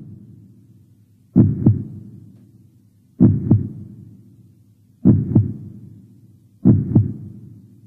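Heartbeat sound: slow lub-dub double thumps, a pair about every second and three-quarters, four times, each pair trailing off slowly.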